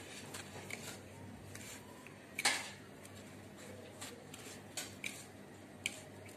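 Hand coating a cutlet in bread crumbs on a plate: soft rustling of crumbs with a few light clicks against the plate, the sharpest about two and a half seconds in.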